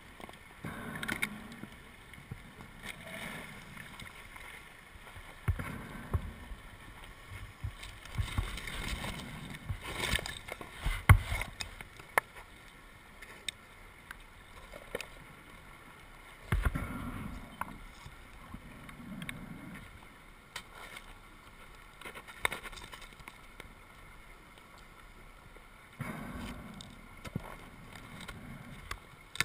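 Underwater, a scuba diver's regulator breathing: irregular bursts of exhaled bubbles every few seconds. A few sharp knocks, such as a hand or kit hitting the camera housing, come in between.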